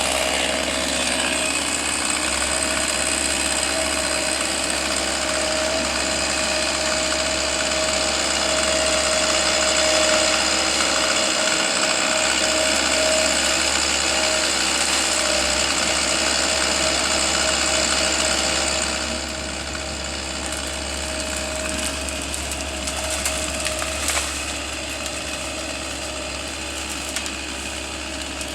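Engine-driven power equipment running steadily at high speed with a constant whine. About two-thirds of the way in it drops to a lower, quieter running level.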